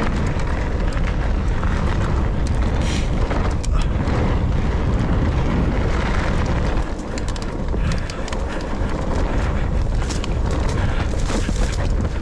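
Nukeproof Mega 290 enduro mountain bike descending a rough, rooty dirt trail: a steady rumble of wind on the action-camera microphone and tyres on loose ground, broken by many sharp knocks and rattles as the bike hits roots and bumps.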